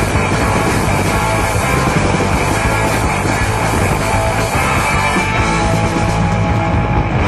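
Rock music playing as a soundtrack.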